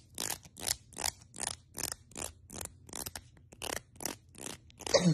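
Rhythmic scraping, about three short strokes a second, with a louder burst near the end.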